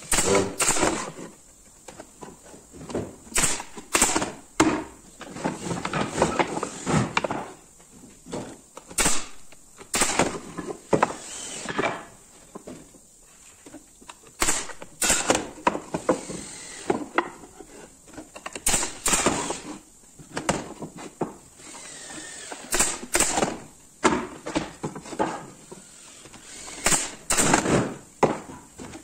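Brad nailer firing nails into pallet-wood boards in sharp single shots, irregularly spaced, amid the knocking and scraping of the wooden pieces being handled and set down on the bench.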